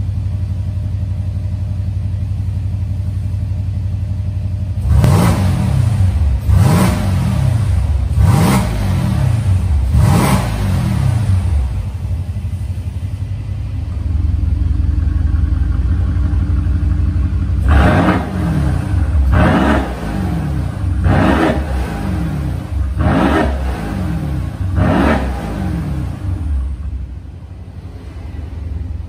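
Mercedes-AMG C63 S (W205) twin-turbo 4.0-litre V8 through an ARMYTRIX valved full exhaust, idling and being blipped in short free revs with the car standing still: four quick revs spaced under two seconds apart, then after a stretch of idle a second set of five. The idle's tone changes between the two sets.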